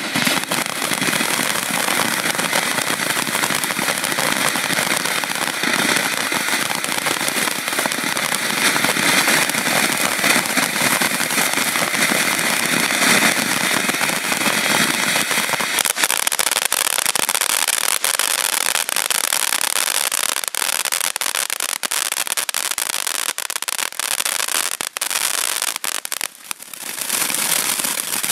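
A 200-gram fountain firework spraying sparks with a steady, loud rushing hiss. About halfway through, the hiss thins and dense crackling takes over, with a brief lull shortly before the end.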